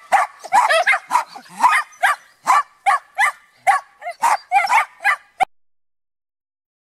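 Shetland sheepdogs barking excitedly at a rabbit in a wire pen: quick, high, sharp barks about three a second that cut off suddenly about five and a half seconds in.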